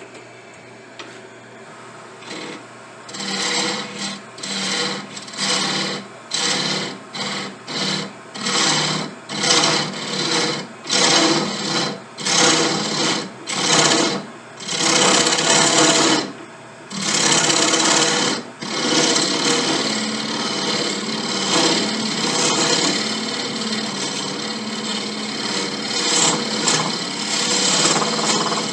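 Hand rasping or filing on a briar pipe bowl. Separate strokes come about one a second, then the rasping turns steadier and quicker for the last ten seconds, over a low steady hum.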